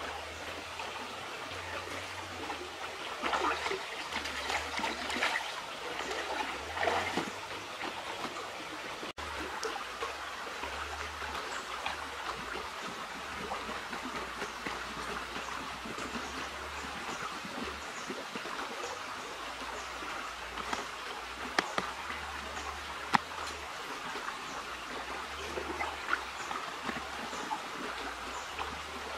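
Shallow river rushing steadily over stones, with a couple of sharp clicks from a knife cutting a jackfruit's stalk about two-thirds of the way through.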